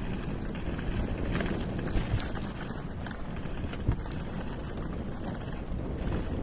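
A dog sled moving over snow: the dog team running ahead and the sled sliding, with wind on the microphone and a few brief knocks.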